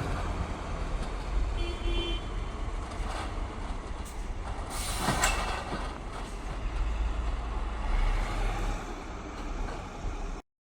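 Heavy truck engine running with a steady low rumble. A short horn toot sounds about two seconds in, and a brief hiss comes about five seconds in. The sound cuts off suddenly near the end.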